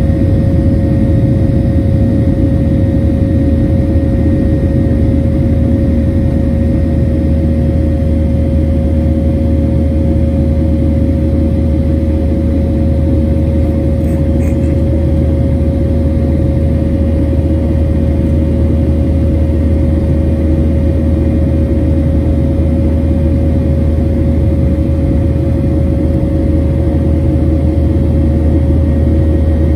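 Cabin noise of a Boeing 737 MAX climbing out, heard inside the cabin at a window seat over the wing: a steady deep engine and airflow drone with a constant whine above it.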